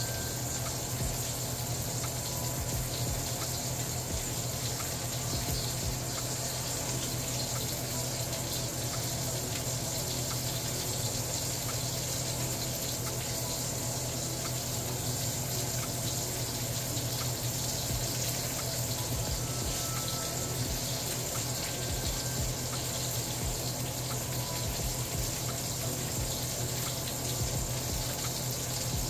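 Salmon fillet sizzling in a hot frying pan: a steady hiss with scattered small pops, over a low steady hum.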